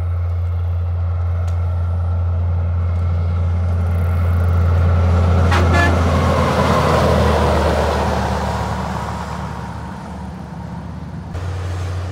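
Heavy truck passing by on a motorway: engine and tyre noise swell to a peak a little past the middle, then fade away.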